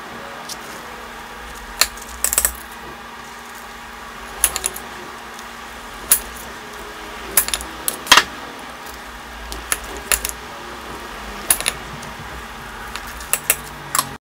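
Kitchen knife cutting a frozen block of ice cream into bars on a ceramic plate, the blade clicking sharply against the plate at irregular moments, over a steady low hiss.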